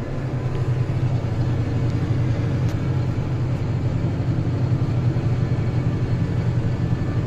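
Claas tractor's engine running steadily under load as it drives a PTO-powered hay chopper through the field, heard from inside the cab: a steady, even drone with the chopper's rumble underneath.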